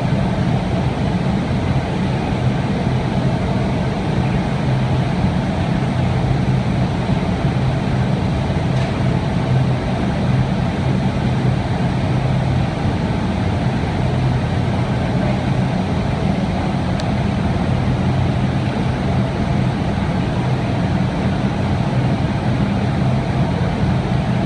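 Steady loud roar of a glass factory floor with running furnaces, with a constant low hum underneath.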